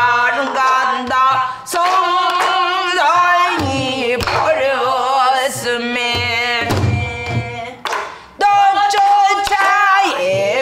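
A woman singing a Korean danga in pansori style, a single voice with wide vibrato and long held notes, broken by two short breaths. She accompanies herself with a few sparse strokes on a buk barrel drum.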